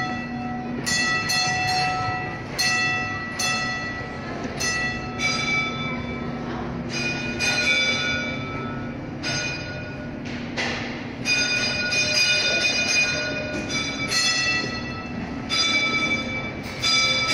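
Bells struck again and again at several different pitches, each stroke ringing on and fading before the next, over a steady low hum.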